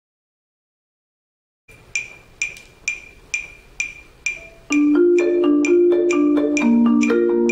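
Silence at first, then a metronome clicking at 130 bpm, about two sharp clicks a second. Past the middle, a marimba played with four yarn mallets joins in with a tap-accent exercise, sounding several notes at once over the continuing clicks.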